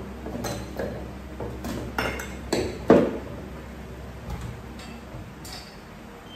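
Glass bottles clinking and knocking as they are handled in a lower kitchen cabinet, a string of separate clinks with one louder knock about three seconds in.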